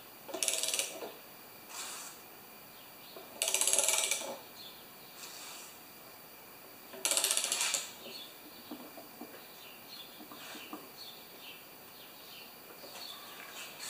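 Ratchet clicking in quick runs as the centre bolt of a flywheel puller is tightened on a Tecumseh lawnmower engine to pull its flywheel; the flywheel has not yet come off. Three main runs of clicks, the two loudest about a second long, with shorter, fainter ones between.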